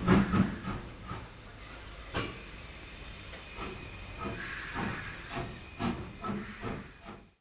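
Steam locomotive hissing, with a series of short knocks scattered through it and a louder burst of hiss about four to five seconds in. It fades out just before the end.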